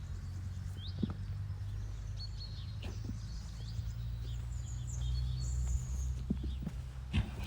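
Small birds chirping in short calls over a steady low rumble, with a few faint knocks.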